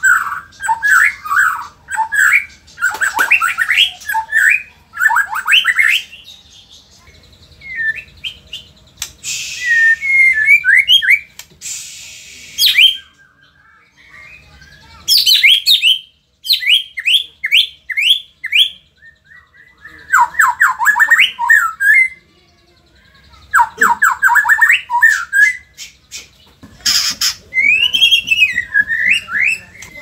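White-rumped shama singing in agitated full song: bursts of rapid, varied whistled notes and fast repeated trills, broken by short pauses, with a harsh, hissing rasp about ten seconds in.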